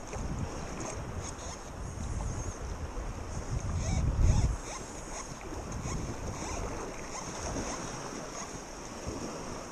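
Choppy lake water lapping and splashing, with wind rumbling on the microphone; the rumble is strongest about four seconds in.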